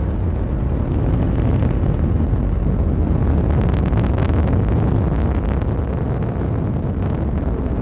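Atlas V rocket in powered ascent: its RD-180 main engine and five solid rocket boosters at full thrust, giving a steady, deep rumbling noise with some crackle near the middle.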